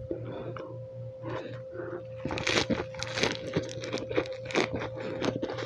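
Fresh lettuce leaves rustling as they are handled, then, from about two seconds in, crisp crunching as a lettuce wrap of dry-fried pork adobo is bitten and chewed. A faint steady hum lies underneath.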